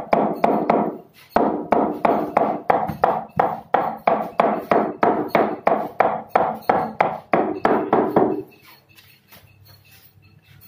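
Hammer tapping a chisel along the edge of a kitchen partition slab, in even strikes about three a second. There is a short break about a second in, and the strikes stop about eight seconds in.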